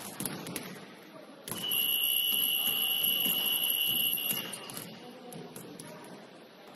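Gym scoreboard buzzer sounding one steady, high-pitched tone for about three seconds, starting about a second and a half in. Basketballs bounce on the hardwood floor around it.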